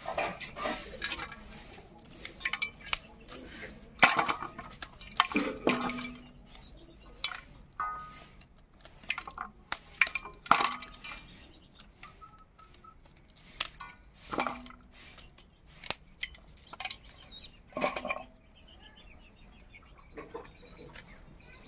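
Cauliflower florets snapped off by hand and dropped into a steel bowl: irregular crisp snaps and knocks, several with a short metallic ring from the bowl.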